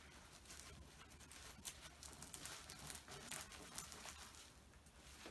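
Faint rustling and scuffing of an Elite Chameleon goalkeeper glove being pulled onto a hand, fabric and latex rubbing, with scattered soft clicks.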